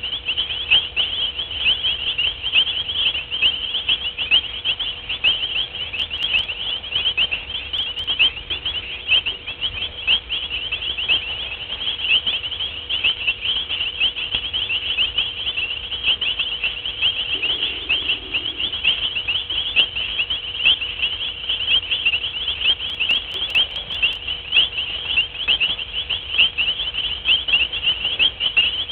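Dense night chorus of many small callers chirping rapidly and without pause at one high pitch, overlapping into a continuous shrill trill.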